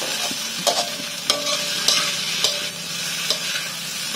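Chopped fried tofu for sisig sizzling in a pan while a spatula stirs it, scraping and knocking against the pan about every half second, each knock ringing briefly.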